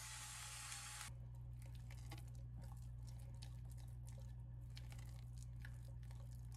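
Electric pepper grinder running with a steady whirr, cutting off about a second in. Then a silicone spatula stirs a thick ricotta cheese mixture in a glass measuring cup, making soft scrapes and clicks.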